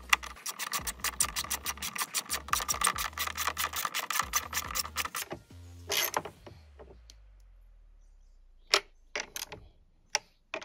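Hand ratchet with a 10mm socket clicking rapidly as it is worked back and forth on the battery hold-down brace nut. The clicking stops about five seconds in, followed by a few scattered clicks and knocks.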